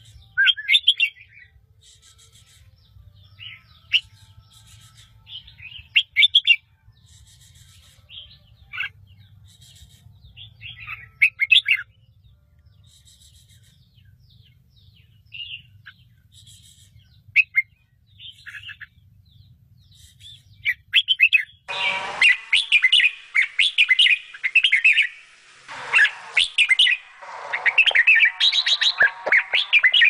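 Red-vented bulbul nestlings chirping in short, scattered calls over a faint low hum. About two-thirds of the way through, a sudden burst of loud, continuous begging calls starts as the parent feeds them.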